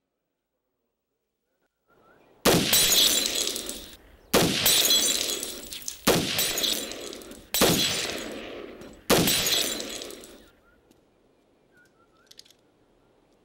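Five pistol shots, each about one and a half seconds after the last, and each followed by a crash of breaking glass that dies away as a target is hit.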